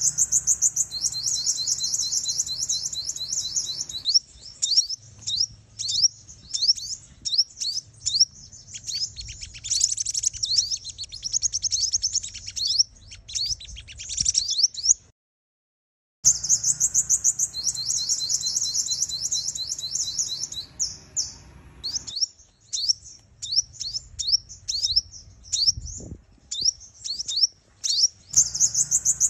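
Female sunbird calling in fast, high-pitched twittering trills and chirps: a decoy female's call played to provoke and lure male sunbirds. The sound cuts out completely for about a second near the middle, then resumes.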